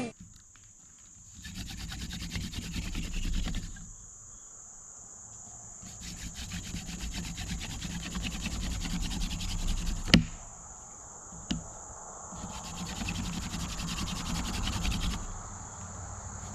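Hand-drill friction fire: a dog fennel spindle spun between the palms and rubbing in its burnt socket in a cedar fireboard, in three bouts of rapid scratchy strokes with short pauses between them. One sharp knock comes about 10 seconds in. Crickets chirp steadily throughout.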